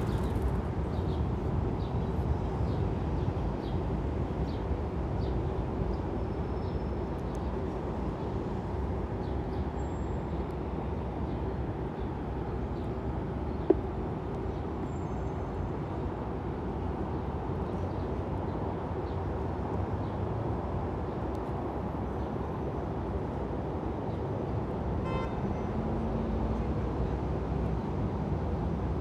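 Steady city street traffic: a continuous low rumble of passing cars, with a single sharp click about halfway through.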